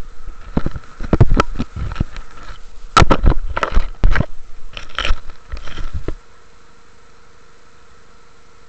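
Camera handling noise: a cluster of irregular knocks, rubs and scrapes right on the microphone for about six seconds. They stop abruptly, leaving a steady background noise.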